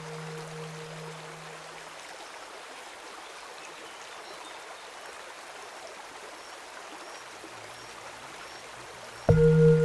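Steady rain on an even hiss. The last of a ringing tone dies away in the first two seconds, and a singing bowl is struck loudly near the end, ringing on with several steady overtones.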